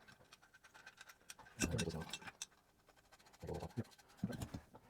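Light metal clicks and scrapes of bolts with spring washers being handled and started into a motorcycle exhaust's mounting brackets by hand.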